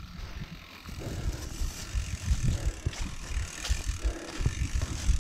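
Rurok Kanlaon enduro mountain bike's rear freehub ratcheting as the wheel turns without pedalling, with irregular low knocks and rattles from the bike jolting over rough ground. It grows louder about a second in.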